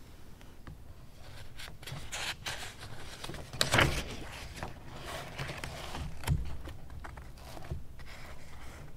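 Rustling and scraping handling noises in a quiet room, loudest about four seconds in, with a soft thump a little after six seconds.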